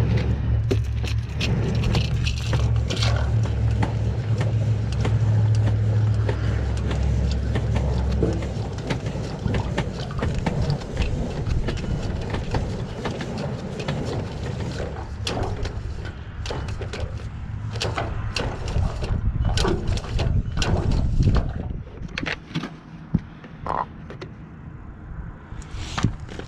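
A vehicle engine's low, steady drone for about the first eight seconds, then a noisier stretch of scattered knocks and clicks.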